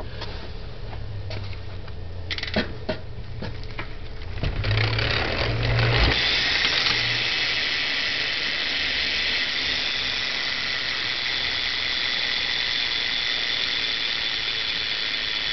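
Profile Mini rear hub with an 8-tooth driver buzzing as the rear BMX wheel is spun and left to coast, its freewheel ratchet clicking so fast it blurs into a steady high buzz. A few scattered clicks and knocks come first as the wheel is handled, and the buzz gets loud about six seconds in.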